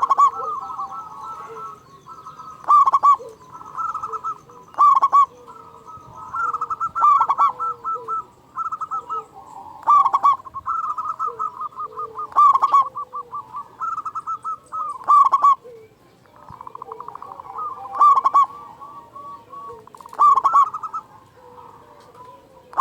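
Zebra dove (perkutut) singing its loud cooing song: bursts of rapid, trilled coos rising to a strong call about every two to three seconds.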